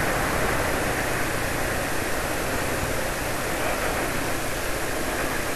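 Steady riding noise from a moving scooter: a constant rush of wind on the microphone mixed with engine and road noise, with no clear changes.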